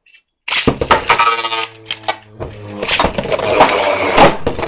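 Two Beyblades, a 3D-printed Hero Samuraizor and a Super Hyperion, launched into a plastic stadium: a sudden start half a second in, a steady whirring hum from the spinning tops, then rapid clattering and clashing as they collide, with a loud hit near the end.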